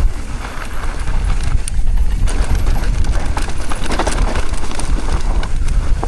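Mountain bike clattering and rattling over rough trail, irregular sharp knocks over a steady low rumble of wind on the microphone.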